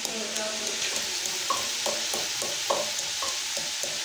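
Chicken frying and sizzling in a metal pot over a gas flame, with a metal spoon stirring and scraping against the pot in repeated short strokes from about a second and a half in.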